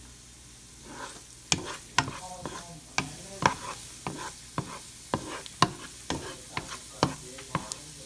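Minced garlic sizzling in hot olive oil in a pan. From about a second and a half in, a utensil clicks and scrapes against the pan about two to three times a second as the garlic is stirred.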